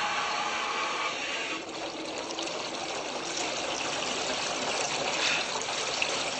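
A steady hissing, rushing noise that eases slightly about a second and a half in.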